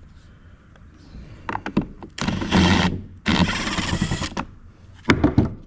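Cordless drill/driver with an 8mm socket running in two short spins, backing screws out of a plastic heater box, with a few knocks of the tool and socket against the box before and after.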